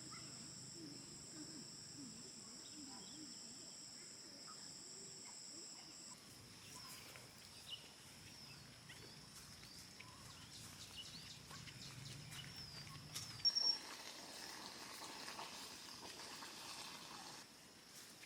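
Faint rural outdoor ambience: a steady high-pitched insect trill with scattered short chirps and clicks. A low hum underneath stops about 13 seconds in, and a brief louder chirp comes just before it stops.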